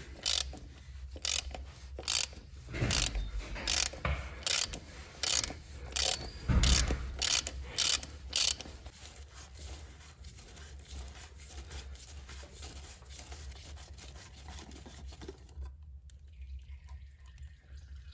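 Ratchet wrench with a 36 mm socket clicking as it undoes the plastic oil filter housing cap on a 1.2-litre petrol engine: a regular run of sharp clicks, about two a second, for the first eight seconds or so. After that come softer rubbing and handling sounds as the cap is turned off by hand.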